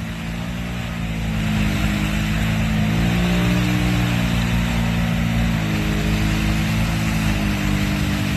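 ATV engine revving hard under load as it churns through deep mud, its tyres spinning and throwing mud. The revs climb, hold high, drop back about two thirds of the way through and pick up again.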